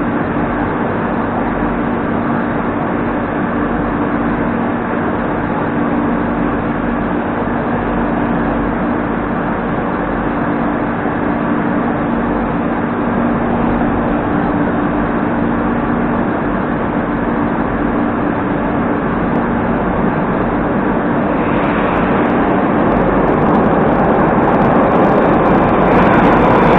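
A Moscow Metro 81-740.4 (Rusich) train standing at the platform, its onboard equipment giving a steady hum under a loud, even noise. About three-quarters of the way in the sound grows louder, and near the end a whine from the traction motors sets in as the train pulls away.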